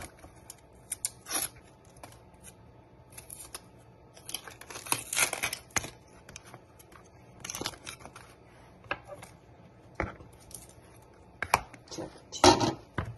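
Dry onion skin being peeled and torn off by hand, with irregular papery rustles and crackles. A louder knock comes near the end.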